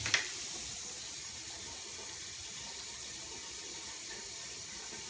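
Sink faucet running steadily, water streaming into the basin while it is checked for leaks.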